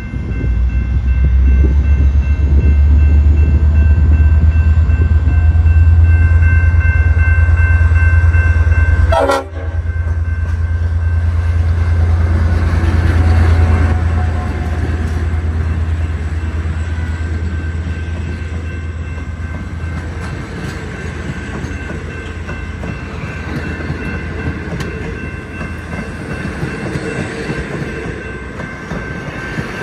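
V/Line A class diesel-electric locomotive A62 passing close by, its engine giving a loud deep rumble for the first half, then its passenger carriages rolling past with wheels clicking over the rail joints as the sound slowly fades.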